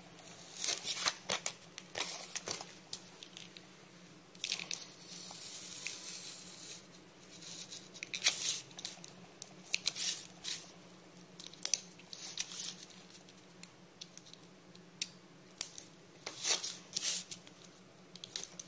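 A snap-off craft knife cutting through a foam-board sheet along traced lines. It makes a string of short, irregular scratchy crunches and rips with brief pauses between strokes.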